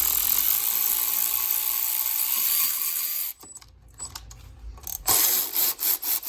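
A handheld power tool running with a steady hiss for about three seconds, stopping, then starting again near the end in several short bursts.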